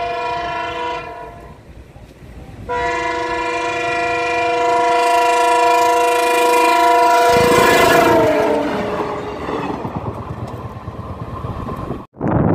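Locomotive horn sounding as the engine approaches on a speed-trial run: a short blast that ends about a second in, then a long blast of several tones from about three seconds in, its pitch dropping as the locomotive passes. The rumble and clatter of the engine running past follows, cut off abruptly near the end.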